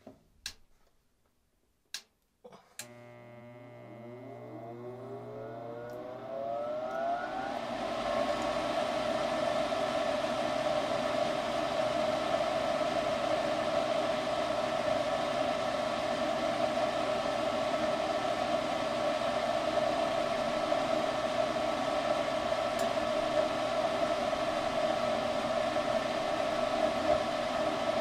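Three sharp clicks, then the new draft inducer motor and blower of a Goodman high-efficiency furnace starts with a hum and spins up, its pitch rising over about five seconds, before settling into a steady whir. The replacement motor is coming up to speed properly for the test firing.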